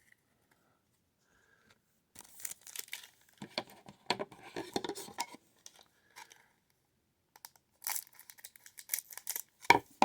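Wrapper of a baseball card pack crinkling and tearing as it is handled and opened, in two spells, with a sharp knock near the end.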